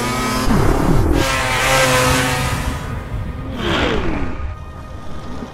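Snowmobile engine revving hard, its pitch falling steeply twice, once near the start and again about two-thirds of the way through, with music underneath.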